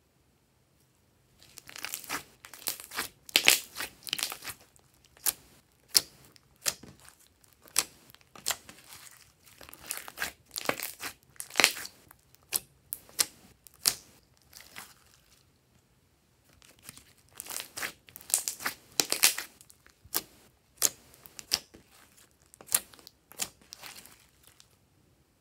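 Thick, glossy slime being squeezed and poked by hand, giving a run of irregular sticky pops, clicks and crackles. It starts about a second and a half in and breaks off briefly around the middle.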